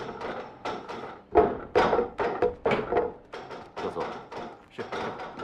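Rapid, irregular wooden knocks and clacks, about three or four a second, of wing chun students striking wooden training dummies. The loudest knock comes about a second and a half in.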